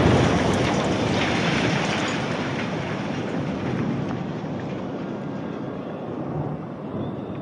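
Rumble of a tower block collapsing in a controlled implosion, fading steadily over several seconds as the debris settles.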